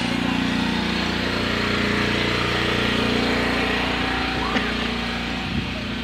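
An engine running steadily, a constant hum that neither rises nor falls.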